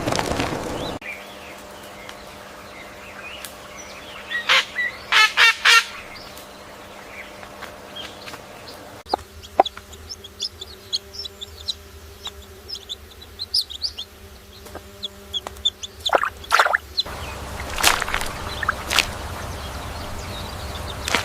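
Chickens clucking in short groups of calls, with quieter stretches between.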